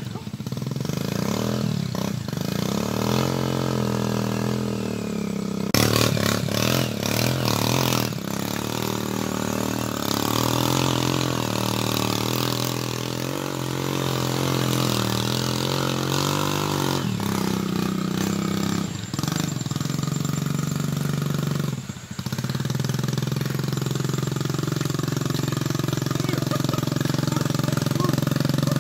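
Small motorcycle engine revving up and down over and over as it labours along a muddy dirt track, with a few sharp knocks and rattles from bumps along the way.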